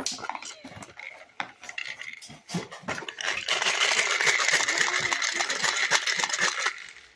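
Small hard objects clicking and clinking against each other, then a dense rattling clatter for about three seconds that stops suddenly.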